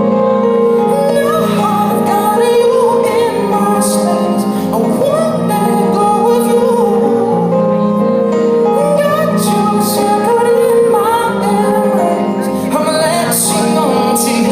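Live music: a high voice singing with pitch glides over steady held chords.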